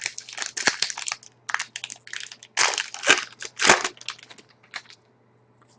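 Trading-card pack wrappers crinkling and cards being handled: a dense run of rustles and crackles that thins out to a few scattered ones after about four seconds.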